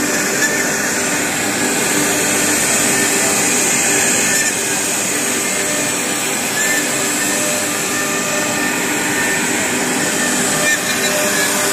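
CNC wood-carving machine's router spindle running and cutting wood, a loud, steady whine and hiss with no break.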